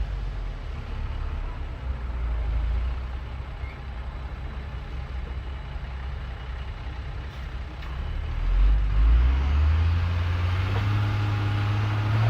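Bulldozer's heavy diesel engine running with a low rumble; about eight seconds in, the revs rise and the engine gets louder, staying up under load.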